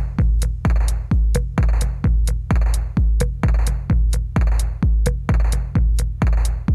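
Background electronic music with a steady drum-machine beat: a deep kick drum about twice a second and a sharper noisy hit about once a second.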